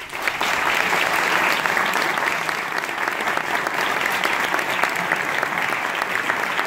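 An audience applauding: many hands clapping together in a dense, steady patter that starts abruptly right after a spoken announcement.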